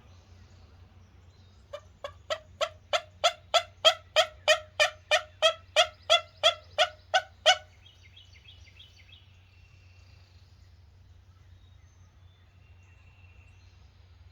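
A turkey call run close by: about twenty evenly spaced, loud hen-style yelps, roughly three a second, building louder and then stopping abruptly, used to provoke roosting wild turkeys into gobbling. Faint small-bird chirps follow.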